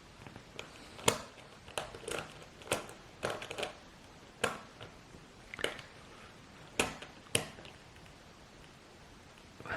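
An adjustable watch case wrench working a watch's screw-down case back shut: a string of sharp metal clicks and scrapes at irregular intervals, the loudest about a second in and two close together near the end.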